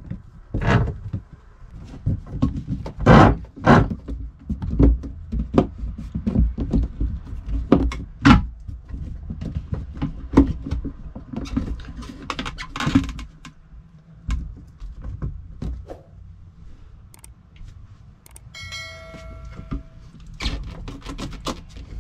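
Irregular knocks, thumps and rubbing from a flexible plastic hose being handled and pushed onto a marine toilet's fittings. The knocks come thick in the first half and thin out later, with a brief squeak near the end.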